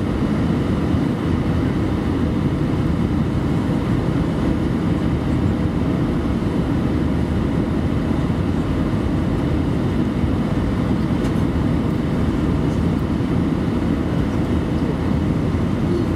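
Steady low roar of engine and airflow noise inside the cabin of an Airbus A319-112 on final approach with its flaps extended, heard from a seat over the wing.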